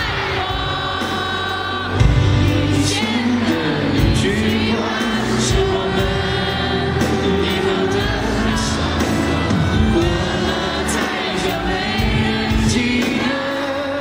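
Live pop band music with a male singer's amplified vocals, heard from far back in an arena. A loud band entry comes about two seconds in, with steady drum hits running through.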